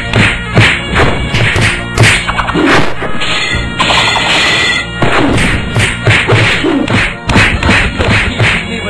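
Cartoon fight sound effects: a rapid, irregular string of whacks and hits, with a longer harsh crash of clashing weapons between about three and a half and five seconds in.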